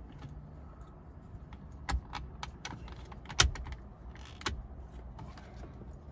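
A run of sharp clicks and light knocks from parts being handled and fitted on a car's steering column, with the loudest click about halfway through.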